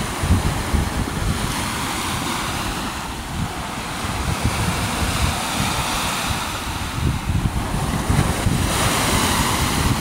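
Lake waves breaking and washing against the shore, with wind buffeting the microphone. A wave washes in louder near the end.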